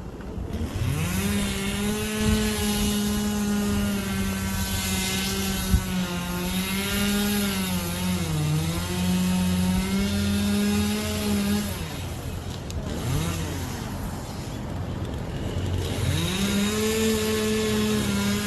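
Two-stroke chainsaw revving up and running at high, steady speed, dipping in pitch briefly about eight seconds in. It drops back around twelve seconds in and revs up again about four seconds later.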